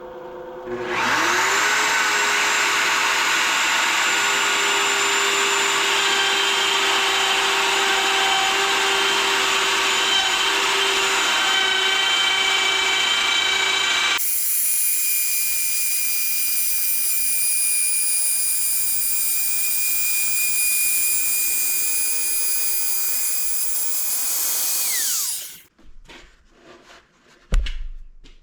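Handheld router on a lathe jig, cutting a spinning test leg round. The motor whines up to speed about a second in and runs steadily. About halfway its sound changes abruptly, and near the end it winds down with a falling whine and stops, followed by a few knocks.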